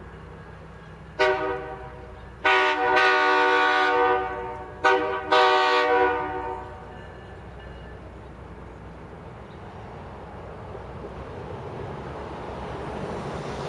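Diesel locomotive air horn sounding four blasts: short, long, short, long, roughly the grade-crossing warning pattern. After the horn, the low rumble of the approaching train grows louder toward the end.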